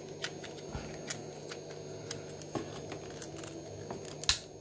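Scattered light clicks and taps of hard plastic toy parts being handled (an action figure and its plastic controller), with a sharper click near the end.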